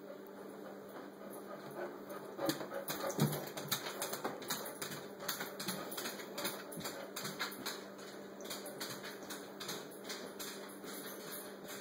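Quick, irregular clicking and tapping, loudest around three seconds in, over a faint steady hum.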